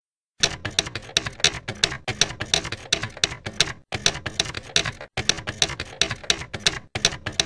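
Typewriter sound effect: keys clacking in quick runs of about four or five strikes a second, starting about half a second in and broken by three short pauses.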